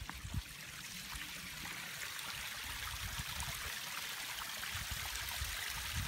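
Water running down a backyard koi pond's waterfall, which is kept running through the winter: a steady trickling rush that grows gradually louder.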